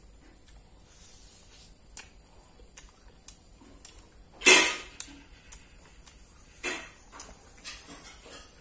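Close-up crunching and chewing of crispy-battered fried tofu stuffed with meatball: scattered small crackles, one loud crunch about four and a half seconds in, and a second smaller one about two seconds later.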